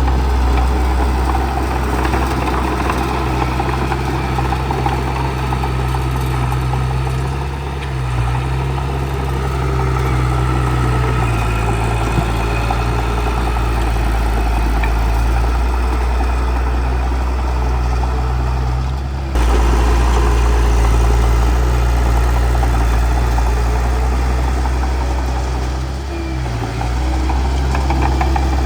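Bulldozer's diesel engine running with a steady low hum. There is a sudden step up in level about two-thirds of the way in.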